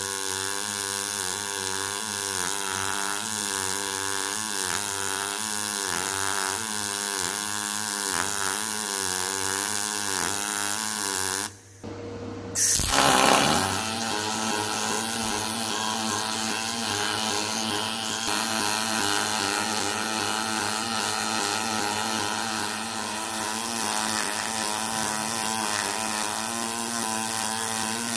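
Double-pulse MIG welding arc from a Decapower UltraMIG-230 Expert welder: a steady buzz whose pitch wavers regularly, about twice a second. Near the middle it breaks off for a moment, a short loud burst of noise follows, and then the buzz carries on.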